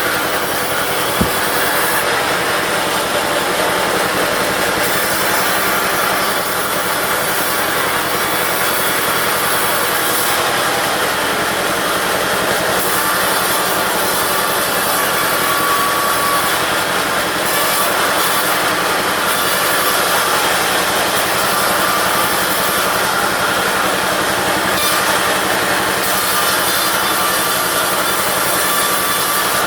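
Diesel-engine-driven push band saw (gergaji pondong) running steadily and sawing teak wood. There is a single sharp click about a second in.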